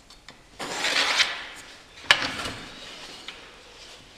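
A pencil scratching a line along an aluminium straightedge on a plywood panel for under a second, then one sharp knock about two seconds in.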